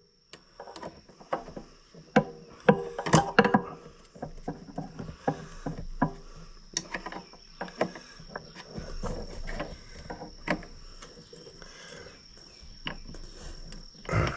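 Hand tools and metal hardware clicking and clinking irregularly while battery cables are fastened on a tractor, a quick run of sharp knocks, loudest a few seconds in, over a faint steady high-pitched tone.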